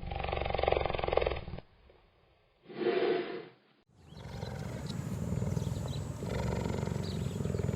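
Cheetah vocalizing across several clips: a rough, rapidly pulsing call that stops about one and a half seconds in, a short call around three seconds, then another sustained pulsing call from about four seconds on.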